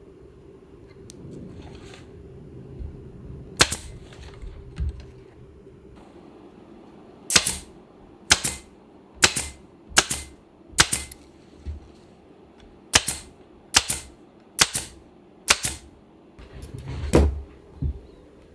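Pneumatic upholstery staple gun firing staples into a wooden chair frame: about a dozen sharp shots, one on its own and then a run of roughly one a second with a short break in the middle.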